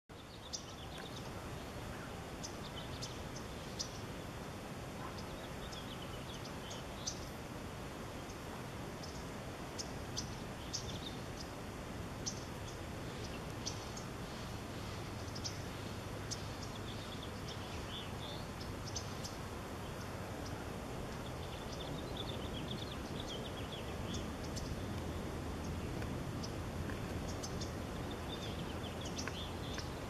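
Western honey bee colony humming steadily at the entrance of its hive, a low drone that grows a little louder in the second half. Birds chirp over it, short high chirps repeated throughout.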